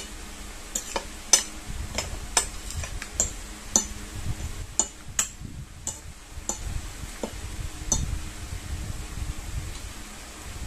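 Metal spoon and fork clinking and scraping on a ceramic plate while spaghetti is twirled, about a dozen irregular clinks over the first eight seconds, with chewing sounds in between.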